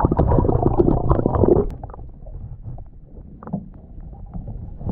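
Muffled water sloshing and gurgling against a GoPro held under water beside a canoe. It is loud for the first second and a half, then drops to a quieter muffled wash with a few faint knocks.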